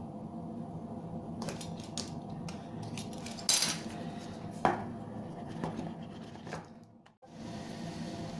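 Irregular clicks, taps and short scrapes of hands handling a phone's box and packaging, over a steady low background hum. A sharp click about halfway through is the loudest sound.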